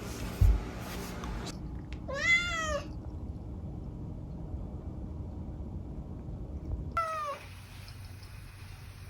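A kitten meowing twice: a rising-then-falling meow about two seconds in, and a shorter, falling meow about seven seconds in. There is a low thump near the start.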